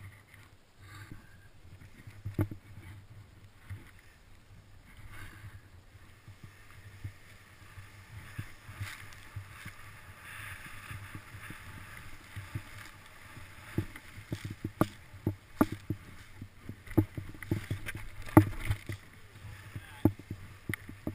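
Snow hissing and scraping under a person in snowshoes sliding seated down a snow slope, with many sharp knocks and thumps from the snowshoes and body, denser and louder in the second half.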